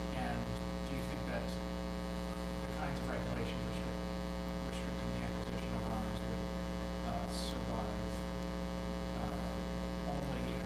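Steady electrical mains hum with a stack of even overtones, with a faint, distant voice talking beneath it.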